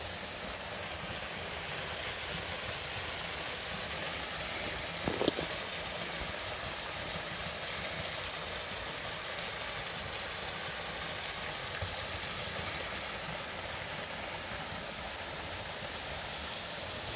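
Steady rush of flowing water from a rocky stream and small waterfall. A brief, louder sound cuts in once about five seconds in.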